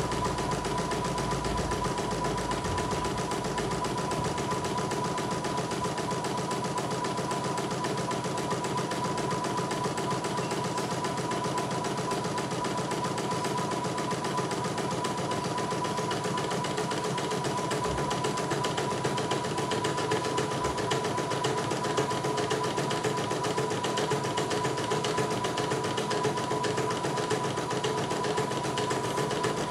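CNY E900 portable embroidery machine stitching out a design: the needle runs at a rapid, even rate as the hoop carriage steps the frame, over a steady motor hum.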